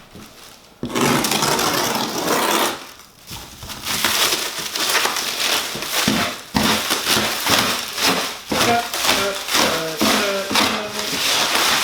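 Large cardboard shipping box being cut and torn open by hand: a long run of scraping, tearing and rustling cardboard.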